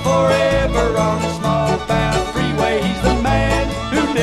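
Bluegrass string band playing an uptempo tune: banjo picking and fiddle over guitar, with a stepping bass line.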